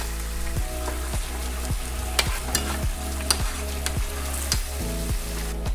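King crab pieces sizzling in a sauce glaze in a frying pan as a spoon bastes them, with light clicks of the spoon against the pan. Steady background music plays underneath.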